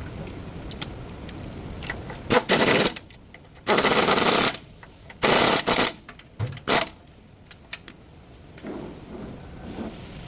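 Pneumatic impact wrench run in several rattling bursts: three of about half a second to a second, then two brief blips.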